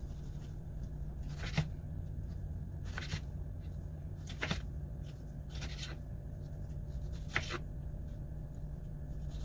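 Knife slicing a tomato on a wooden cutting board, the blade tapping the board with each cut, about five taps roughly a second and a half apart, over a steady low hum.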